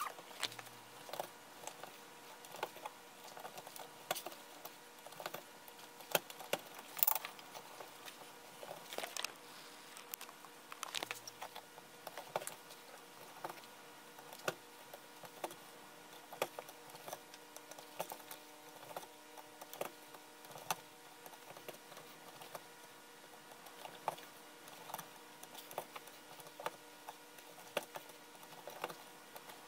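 Hand-stitching a leather sheath: a needle pushed through the stitching holes and thread drawn tight, giving irregular small clicks and ticks, with a faint steady hum underneath.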